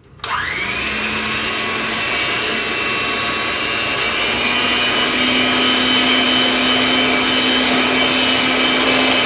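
Cusinaid 5-speed electric hand mixer switching on and winding up to speed within the first second, then running steadily with its beaters whirring through cake batter in a glass bowl. About four seconds in there is a click and the pitch steps up slightly.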